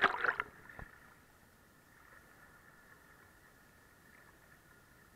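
A wave splashing against a waterproof camera at the water surface, a short loud splash in the first half-second, then faint steady hiss of the sea.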